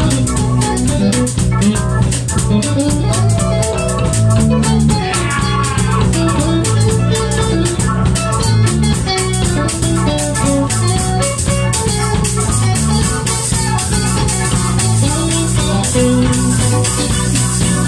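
Live rock band playing an instrumental: electric guitar over bass guitar and drum kit, with fast, dense percussion keeping time.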